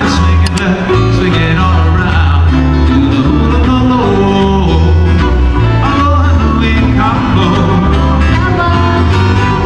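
Background music with plucked guitar, a steady bass line and a singing voice, in a country style.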